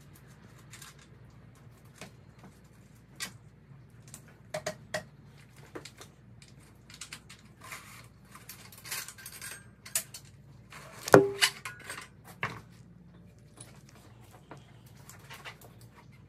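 Metal clinks, taps and rattles of a Husqvarna FC350 dirt bike's rear axle and wheel hardware as the rear wheel is taken off. One loud clank about eleven seconds in rings briefly.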